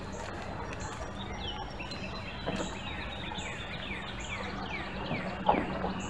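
A songbird singing a run of quick falling whistled notes, about three a second, over a steady low hum. Two dull knocks sound partway through, the louder one near the end.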